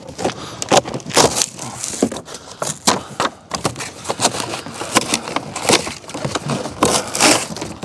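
Stapled end flap of a corrugated cardboard shipping box being pulled open by hand, giving irregular crackling and tearing of cardboard throughout.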